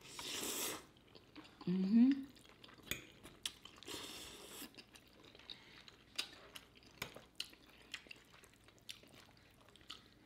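A fork clicking lightly and repeatedly against a plate, with eating sounds, two brief soft hisses near the start and about four seconds in, and a short rising "mm" about two seconds in.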